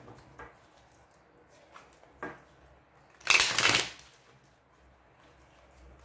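A deck of tarot cards being shuffled by hand. One loud riffle of the cards lasts about half a second, starting a little after three seconds in, with a few soft clicks and taps of the cards being handled and squared before it.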